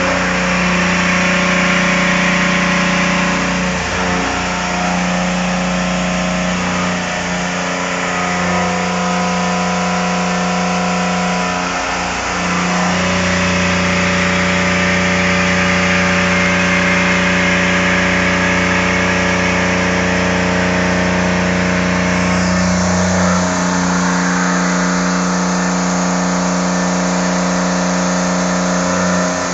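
CNC vertical milling machine cutting a metal part: a steady spindle whine made of several held tones over a hiss of cutting, the set of tones shifting every few seconds as the cut changes.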